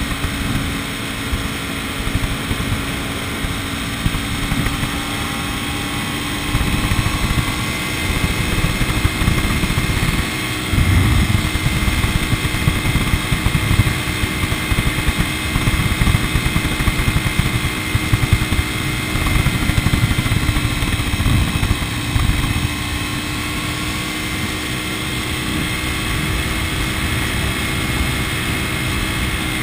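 A vehicle driving along: steady engine and road noise with a faint steady whine, and a low rumble that swells and fades.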